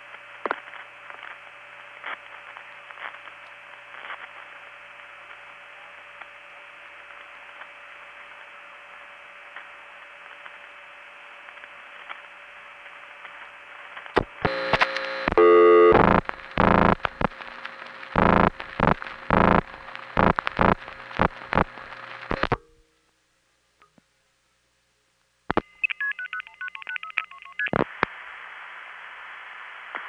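Analog long-distance telephone line: steady line hiss with faint steady tones, then, about halfway, the loud razzing of a speeded-up rotary dial placing the next call. After a few seconds of dead silence come switching clicks and a short run of quick tone beeps, and the line hiss returns.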